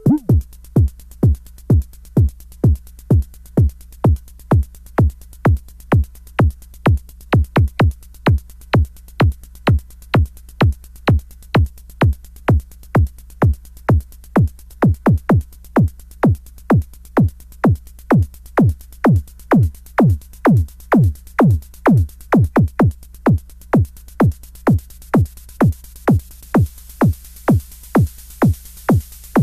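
DIY analogue synthesizer kick-drum circuit (KIK01, sine plus noise) triggered repeatedly, about two to three hits a second. Each hit is a short bass thump made by a sine tone sweeping quickly down in pitch and dying away; how high the sweep starts varies from hit to hit. A hiss of noise grows louder near the end.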